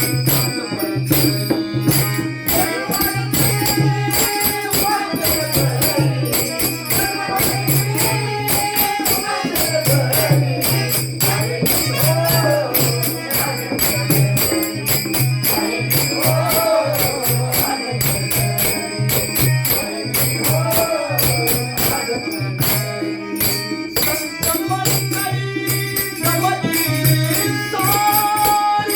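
Marathi devotional song (abhang) music, here without clear words: a fast, even jingling percussion beat over a steady low drone and a wavering melodic line.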